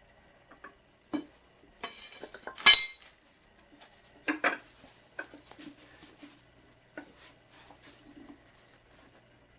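Steel-on-steel clinks and clanks from a mini manual tire changer and its steel tire bar being handled on a small mower wheel. The loudest is a single ringing clang a little under three seconds in, as the bar is set down on the concrete floor, followed by a pair of clanks about a second and a half later and lighter clicks as the changer's handle is worked.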